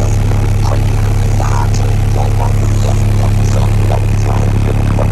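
A vehicle engine running steadily with a constant low hum, with faint scattered voices behind it.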